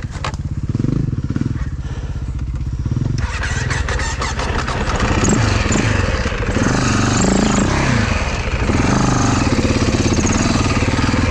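Husaberg dirt bike engine running as the bike is ridden, its revs rising and falling on the throttle. It is quieter for the first few seconds, then louder and harder-revving from about three seconds in.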